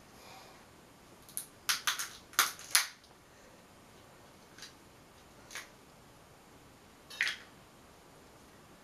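Crab leg shell being cracked and snapped apart by hand: a quick run of sharp cracks a second or two in, then three single cracks spaced a second or so apart.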